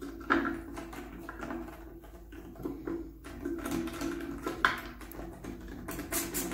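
Hard plastic housing parts of a cordless circular saw clicking and knocking as they are handled and fitted together while a small screw is set and driven by hand. Sharp clicks come about a third of a second in and a little past the middle, with a quick run of taps near the end.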